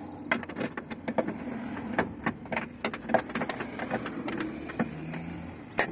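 Irregular metallic clicks and taps of a ratchet and socket worked against a car door's metal frame while the socket is fitted onto a nut through an access hole, with one sharper click near the end. The socket does not seat easily.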